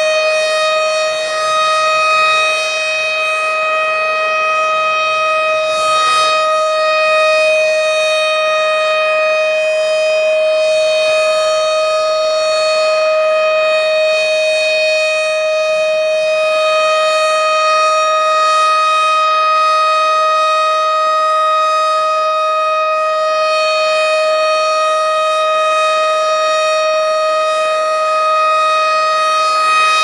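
Tornado warning siren sounding a steady, unbroken tone at one fixed pitch, with strong overtones.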